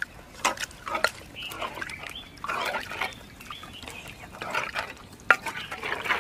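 Wooden spoon stirring thick chicken curry in a clay pot, the sauce squelching and sloshing irregularly, with a few sharp clicks through it.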